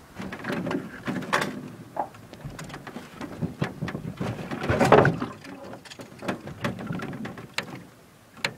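Close, jumbled handling noise from the angler's spinning rod and reel being worked against a hooked fish: irregular clicks, knocks and rubbing, with a louder rustling burst about five seconds in.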